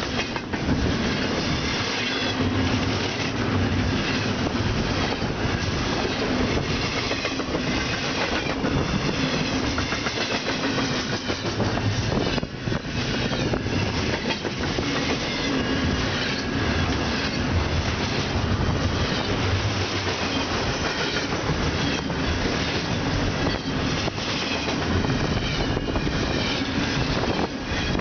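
Double-stack container train's well cars rolling past at close range, their steel wheels clicking over the rail joints in a steady, continuous clickety-clack.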